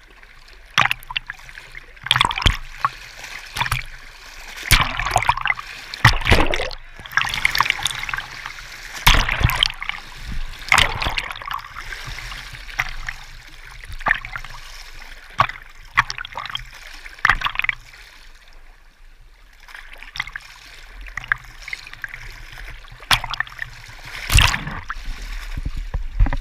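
Small waves sloshing and splashing right at the camera as it sits at the water's surface, in irregular splashes every second or so.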